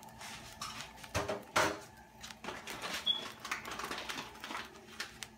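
Kitchen handling sounds: scattered knocks, clinks and short scrapes of cookware and utensils, busiest a little over a second in, with a brief high chirp about three seconds in.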